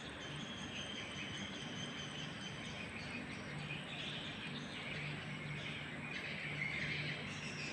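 Faint outdoor ambience by the water: birds and insects chirping over a steady background hiss, with a faint low hum that comes and goes.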